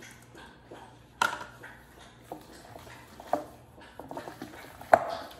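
A spoon stirring mashed sweet potato in a glass mixing bowl, with about four sharp clinks of the spoon against the glass, the loudest about a second in.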